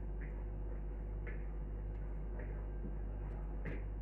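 Bread dough being mixed and kneaded by hand in a plastic bowl: soft, dull taps about once a second, over a steady low hum.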